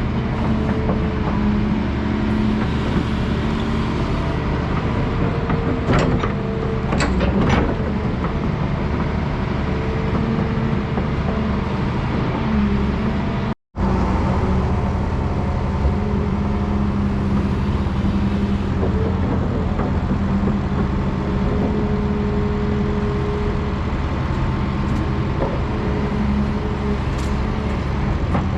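Volvo EC360B tracked excavator's Volvo D12D six-cylinder diesel running steadily, with a few sharp metallic knocks about six and seven seconds in. The sound cuts out for an instant near the middle.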